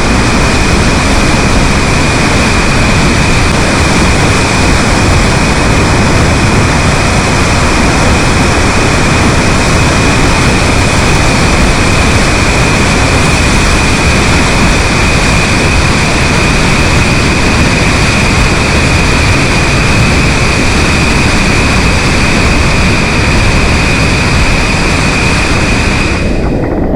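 Floodwater of the Au Sable River rushing through Mio Dam: a loud, steady torrent, with a steady high tone running through it.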